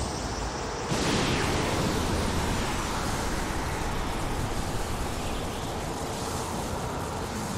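Anime sound effect of a Conqueror's Haki clash shockwave: a loud, steady rushing noise with no clear pitch, surging louder about a second in.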